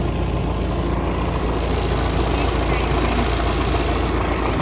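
Wind blowing across the microphone: a steady, loud low rumble and hiss.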